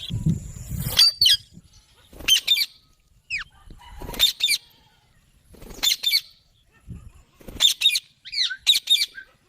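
Indian ringneck parakeets giving short, shrill screeching calls, mostly in quick pairs, repeated about eight times. A few low thuds come in among them.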